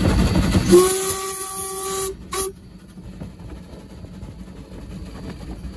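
Steam whistle of the New Zealand Railways Wa class locomotive Wa 165: one long blast of about a second and a half, opening with a burst of steam hiss, then a short second blast. Before it, the moving locomotive is heard running loudly with a low rumble; after the whistle, a quieter rumble goes on.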